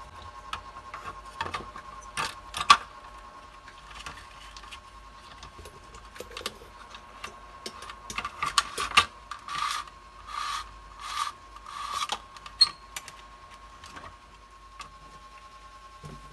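Hand work on an opened plastic emergency-light housing while desoldering its wiring: scattered clicks and knocks of the plastic case and tools, then, from about eight seconds in, several short scraping rubs in quick succession.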